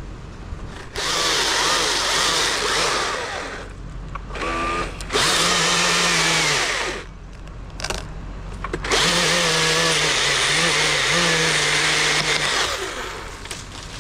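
Chainsaw cutting wood in three bursts of a few seconds each, its whine dipping in pitch as it bites during the last and longest cut.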